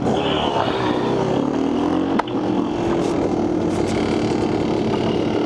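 Dirt bike engine running as the bike pulls away and rides off along a gravel trail, its pitch rising over the first half second and then holding fairly steady. A single sharp click comes about two seconds in.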